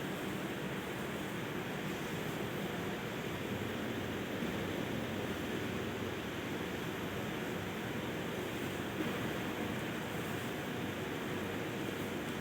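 Steady, continuous machinery noise from a syrup-and-suspension manufacturing plant, an even whoosh with a low hum and no distinct strokes or rhythm.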